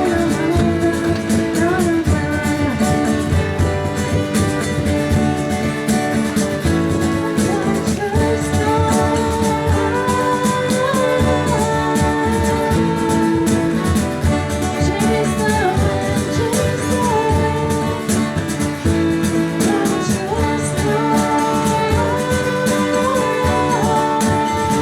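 Live music: singing over guitar and other instruments, played steadily without a break.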